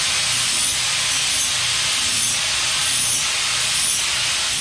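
Small handheld electric grinder grinding steel bar grating: a steady grinding hiss with a faint high whine.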